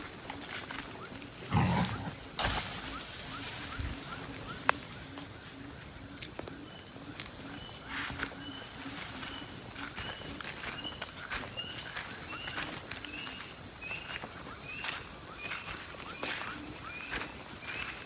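Forest insects droning steadily at two high pitches. From about six seconds in, a short chirp repeats about every half second. There is a thump about two seconds in and a sharp click near five seconds.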